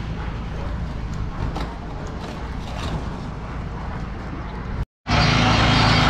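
Small engine of a portable drum concrete mixer running steadily, at first more distant and muffled. After a brief dropout near five seconds in, it runs loud and close.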